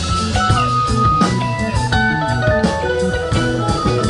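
Live rock band playing an instrumental passage: electric guitar notes held over bass and a drum kit.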